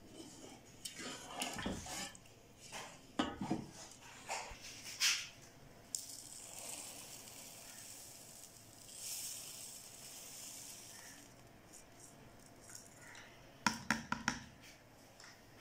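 A spoon stirring milk and vermicelli in a metal pot, with scattered scrapes and knocks against the pot. Then sugar is poured from a cup into the milk with a soft hiss, and a quick run of taps on the pot comes near the end.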